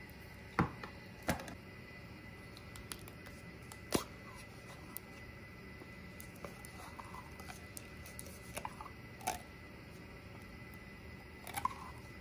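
A few sharp taps and clicks with soft wet sounds as condensed cream of celery soup is emptied from its can into a mixing bowl of cornbread dressing and scraped out with a spatula.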